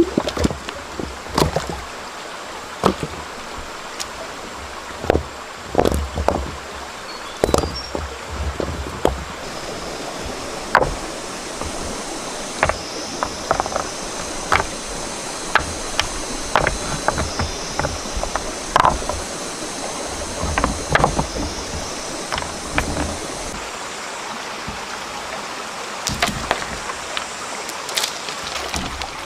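Stream water running steadily, with many irregular sharp splashes and knocks scattered throughout.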